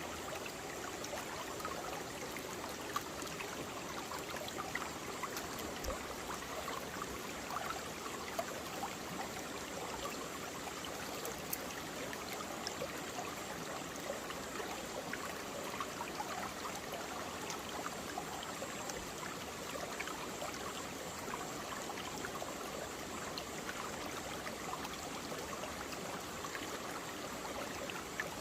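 Mountain valley stream running steadily over rocks, a constant rush of water flecked with small splashes and gurgles.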